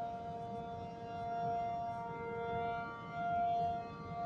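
T-135-ACA P-50 outdoor warning siren sounding a steady alert-signal test: a held chord of several steady tones that rises and falls in loudness.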